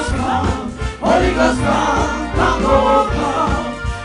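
Gospel praise-and-worship music: singers, with a choir sound, over a band with bass and a steady drum beat.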